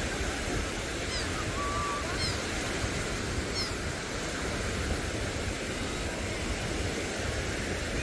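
Small Gulf of Mexico waves washing on the shore, a steady hiss of surf. A few short, high chirps come through in the first half.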